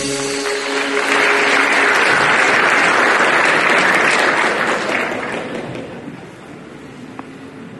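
Audience applauding at the end of a choir's song, the clapping swelling about a second in and then dying away gradually over the last few seconds.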